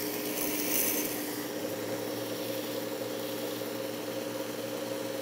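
Work Sharp Ken Onion Edition sharpener with Blade Grinding Attachment running, a coarse 120-grit belt grinding down the steel spine of a paring knife with a gritty hiss for about the first second and a half. Then the knife comes off and the belt runs on unloaded with a steady motor hum.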